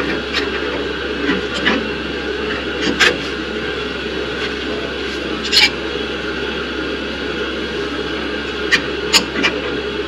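A few sharp metal clicks and taps from pliers and a clip being worked behind the boiler's recirculation pump, over a steady background hum.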